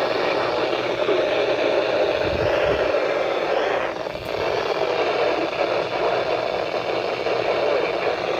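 Steady radio static hiss from a receiver picking up a weather alert broadcast through weak, noisy reception, dipping briefly about four seconds in.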